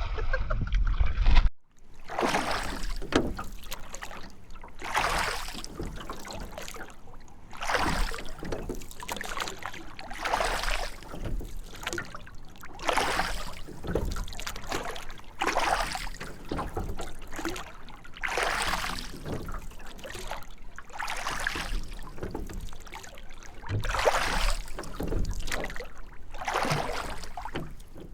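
A low rumble that cuts off abruptly after about a second and a half, then seawater washing and splashing in irregular surges every one to two seconds.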